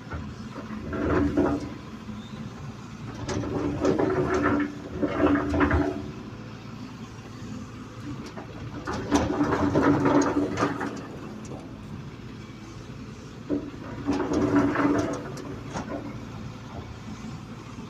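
Excavator working: the engine and hydraulics rise under load in repeated bursts of one to two seconds, a few seconds apart, with scattered knocks.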